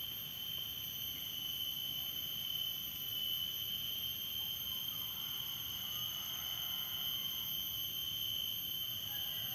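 Insects trilling in the grass: one continuous high-pitched tone that holds at a steady level.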